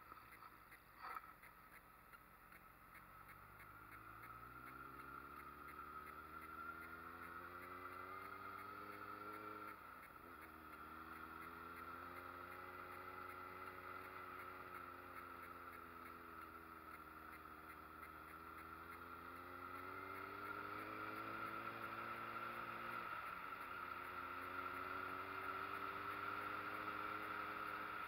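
Street motorcycle engine under way, its pitch rising and falling with the throttle and dropping abruptly twice, about ten and twenty-three seconds in, as gears change. A sharp click about a second in.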